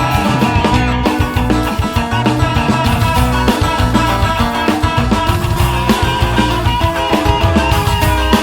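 Instrumental passage of a song: guitar-led band music with a rock feel and a steady beat, with no singing.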